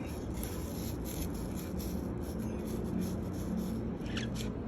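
Kitchen knife cutting into an apple: a series of short scraping strokes as another nested layer is carved out.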